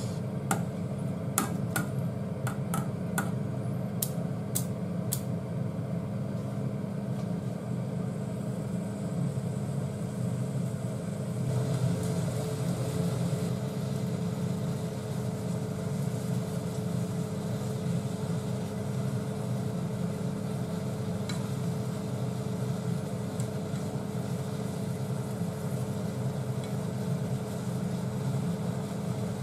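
Vegetables tipped into a saucepan and stirred with wooden chopsticks, giving about nine light clicks and taps in the first five seconds. A steady low machine hum runs beneath.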